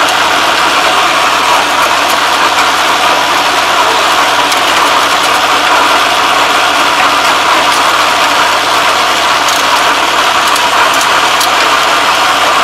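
Kubota ARN460 combine harvester's diesel engine running steadily, with faint clicks and scraping as a hand tool rakes straw out of the threshing drum's wire concave.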